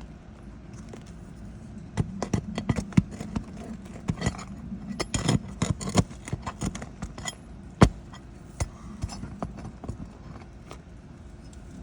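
Irregular run of sharp clicks and knocks as a hand tool works the nails out of old, brittle roof shingles that crack and tear as they are lifted, with one louder knock about two-thirds of the way through.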